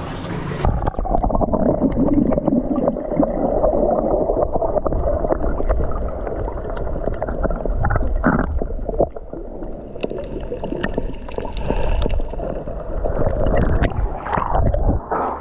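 Water gurgling and sloshing heard from under the surface: dull and muffled from about a second in, with a steady low rumble and scattered small clicks and pops.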